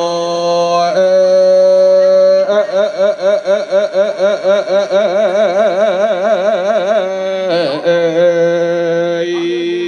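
A woman singing Korat folk song (phleng Khorat) into a microphone. She holds long notes that step in pitch, with a long stretch of wide, fast vibrato in the middle, then settles onto lower held notes.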